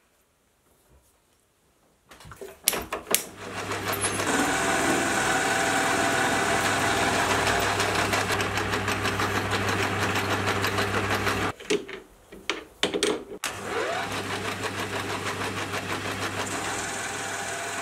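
Hafco AL250G metal lathe running, with a carbide insert tool facing the end of a solid steel bar: a steady motor hum under the cutting noise. After a few clicks it starts about two seconds in. Around the middle it stops briefly amid some knocks, then runs and cuts again.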